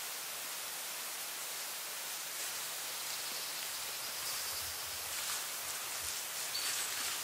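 Steady background hiss, with a few faint rustles in the second half.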